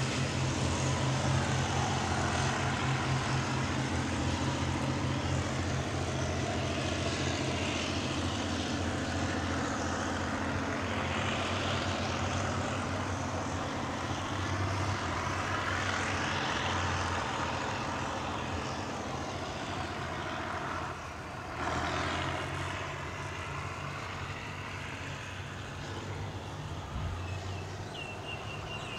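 Diesel-hauled passenger train rolling away along the track, a steady rumble of wheels on rails with a low hum, slowly fading as the coaches recede.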